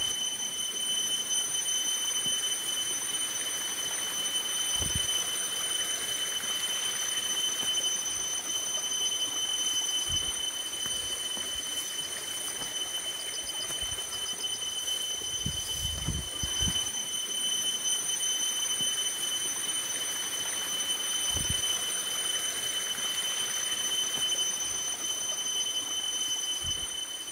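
Bathing with a metal bowl: water scooped from a plastic basin and poured over the body, splashing down, over a steady hiss, with a thin steady high tone above it and a few soft low thuds.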